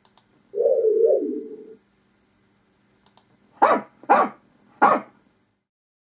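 Recorded sound effects played back from a VS1053 MP3 shield: a wavering tone lasting about a second, from the 'Kitt Car' effect, then a dog barking three times.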